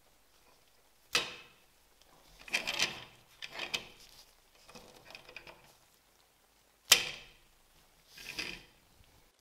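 Wheels being fitted to a plastic 1/18 model car chassis on a wooden board. Two sharp clicks, the loudest sounds, come about a second in and again near seven seconds, with softer plastic scraping and handling sounds between. A short rolling scrape near the end comes as the chassis is pushed across the wood.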